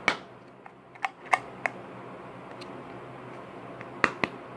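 A dip-can cover and a can of dip clicking and snapping as they are fitted together by hand: a run of sharp clicks in the first two seconds and two more about four seconds in.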